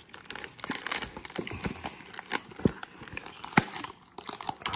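Crinkling and crackling of a cardboard trading-card hanger box and its packaging being handled and opened by hand. The sound is irregular, with a few sharper clicks.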